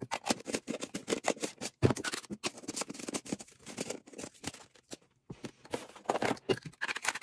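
Hard plastic lightstick globes and bases clicking and knocking together as they are picked up and cleared off a table: a string of small taps, with a sharper knock about two seconds in and a short lull around five seconds.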